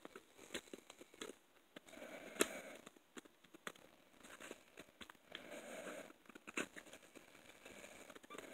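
Handling of a plastic CD jewel case and its paper booklet: scattered clicks and crinkly rustles, with one sharp click about two and a half seconds in.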